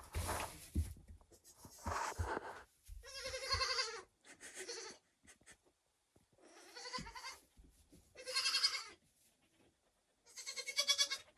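Goat kid bleating three times, each a wavering high call about a second long, about three, eight and ten seconds in. Faint rustling and knocks come between the calls.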